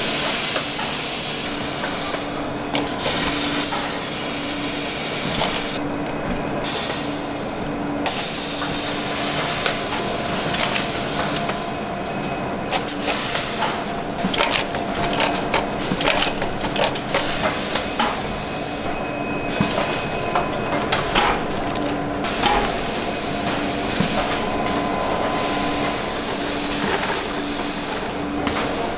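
Ice cream production machinery running: a steady hum with a pulsing low tone, a hiss, and frequent irregular clicks and clatters.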